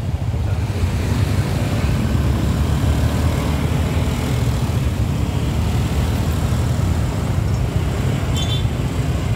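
Motorcycle traffic: many small motorbike engines running as a crowd of riders moves off across the railway crossing, a steady low engine-and-road noise. A short high beep sounds near the end.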